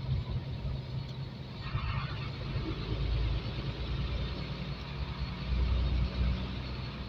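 Truck's diesel engine running steadily while driving, heard from inside the cab with low road rumble; a brief hiss sounds about two seconds in.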